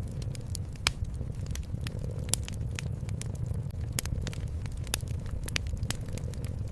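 Wood fire crackling, with frequent sharp pops, a few of them louder, about a second, two and a half and four seconds in. Under it runs a steady low rumble of cat purring.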